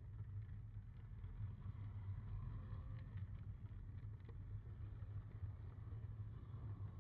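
Steady low rumble of an O-scale model streetcar's motor and wheels running along the track, picked up by a camera riding on the car, with a few faint clicks from the rails.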